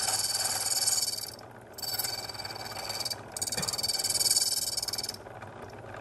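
A belt-driven key machine's cutter wheel cutting a brass barrel-key blank: a high-pitched grinding over the low hum of the motor. It comes in three runs with two short breaks and stops about five seconds in.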